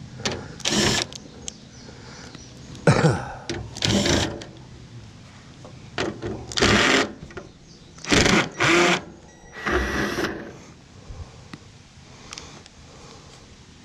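Cordless drill/driver running in several short bursts, starting and stopping, as screws are backed out of a motor housing being stripped for copper.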